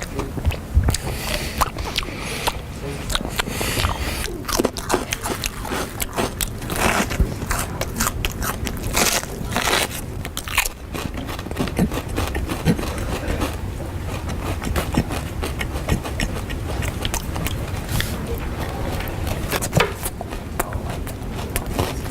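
A person chewing and crunching food very loudly, a quick irregular run of crunches, smacks and crackles.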